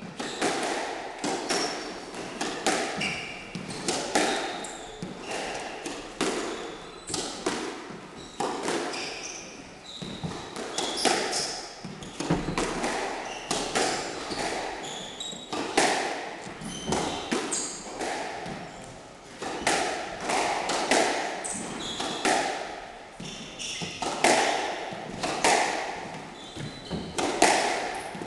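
A long squash rally: the ball smacking off rackets and the walls about once a second, with short high squeaks and thuds of court shoes on the wooden floor between the shots.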